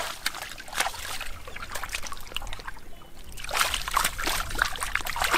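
Hands splashing and sloshing in shallow muddy water while groping for fish, in many short irregular strokes, with a quick run of splashes from about three and a half seconds in.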